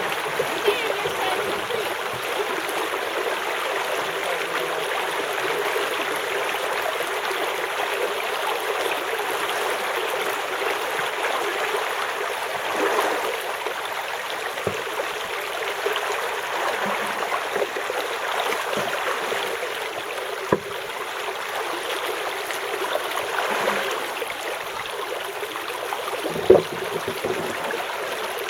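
Creek water running steadily over and through rocks and blocks. Three brief knocks come in the second half, the loudest near the end.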